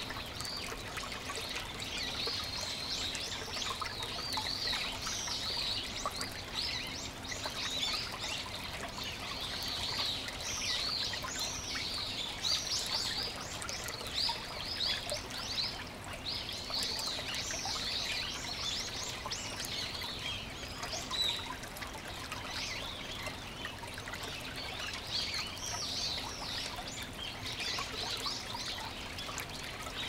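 Shallow stream trickling and splashing over mossy rocks, with many birds chirping and singing continually over it in quick, high chirps.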